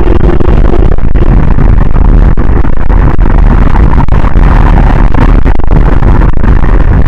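Vehicle road noise picked up by a dashcam microphone: a steady, loud, distorted rumble with constant crackling.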